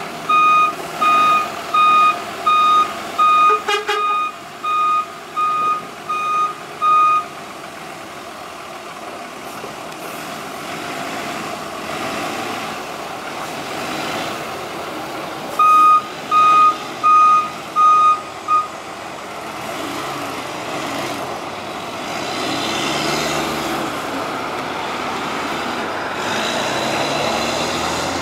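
MOL CY FM250 terminal tractor's reversing alarm beeping at an even pace in two runs, over its diesel engine running. Near the end the engine grows louder as the tractor pulls the RoRo trailer away.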